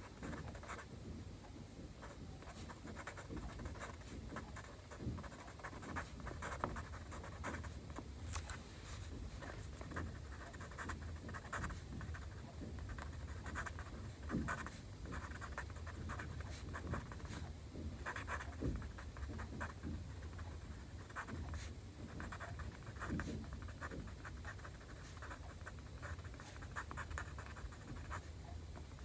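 Pen writing Chinese characters by hand on paper: quick, irregular scratches of the tip across the sheet, stroke after stroke with short breaks, over a faint low hum.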